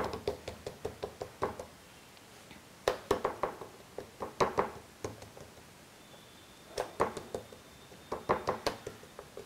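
Fingertips patting flatbread dough (dhapate) flat on a floured wooden chopping board: quick soft taps in about five short runs, with pauses between them.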